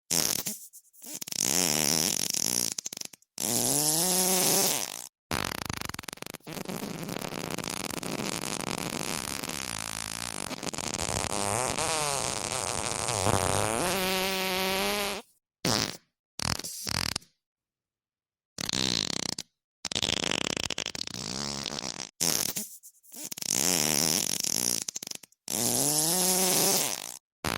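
A string of about a dozen fart sounds, most one to two seconds long with a sputtering, wavering pitch, and one long drawn-out one of about nine seconds in the first half. Short silences separate them.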